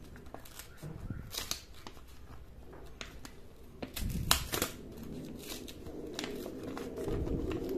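Paper crinkling and tearing in small bits as thin PLA filament drawn with a 3D pen is peeled off a paper stencil. The paper is ripping away because it sticks to the plastic. Scattered crisp clicks and rustles.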